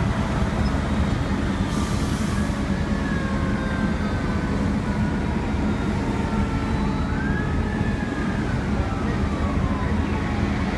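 Fire engine siren wailing faintly in slow rising and falling glides over the steady rumble of street traffic.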